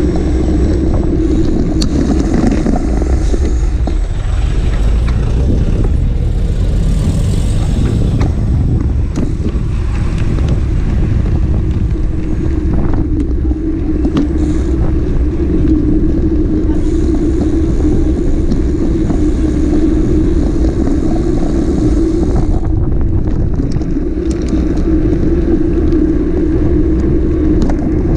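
Sport motorcycle engine running at a steady pitch while riding, over a constant low rumble.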